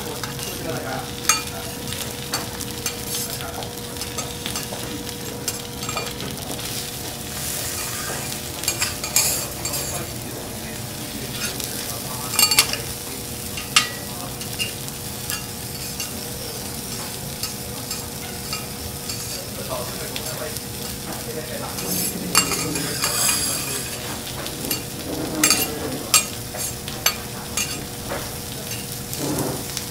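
Food sizzling on a hot teppanyaki steel griddle, with sharp clicks and scrapes of metal spatulas working on the plate now and then, and a faint steady hum underneath.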